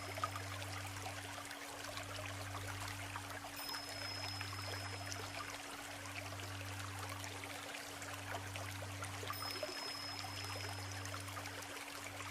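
The shallow Isuzu River babbling steadily over stones. Under it runs a low hum that pulses in stretches of about two seconds, and a thin high tone sounds twice, each lasting about a second and a half.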